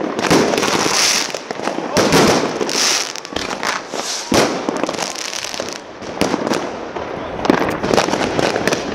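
Fireworks going off: a dense run of bangs and crackles, with several louder bangs spread through.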